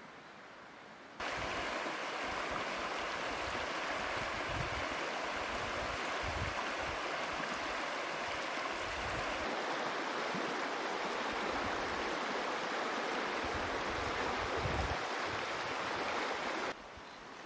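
A shallow river running over a stony bed, a steady rushing of water that comes in sharply about a second in and stops shortly before the end.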